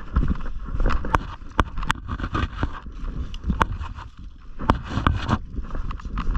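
Body-worn camera jostled as the player moves through brush, giving a rumbling rustle of movement and handling noise, with about six sharp snaps scattered through it.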